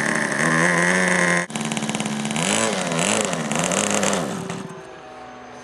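Small model aircraft engine running on the ground and being throttled up and down, its pitch rising and falling several times. It dies away about four and a half seconds in.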